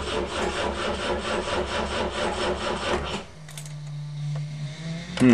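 Starter cranking the 1973 BMW 2002tii's mechanically fuel-injected four-cylinder engine in a steady rhythmic churn; it turns over without firing, which the owner puts down to possibly no spark or no fuel pressure from a leaking injection pump. The cranking stops suddenly about three seconds in, leaving the steady buzz of the electric fuel pump and a few light clicks.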